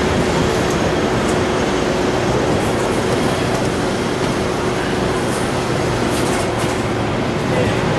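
Hong Kong double-decker electric tram heard from aboard: a steady running rumble with a constant hum over it.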